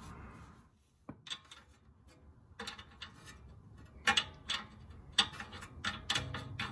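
Light metallic clicks and ticks, irregular, from a hand turning the nut on the ball-joint stud of a BMW M2's front tension arm. The clicks come loosely grouped after a short quiet spell about a second in.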